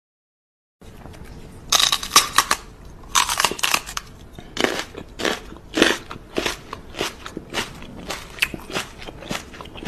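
Loud, crisp crunching of something being bitten and chewed close up: a dense run of crunches a second or so in, then single crunches about twice a second.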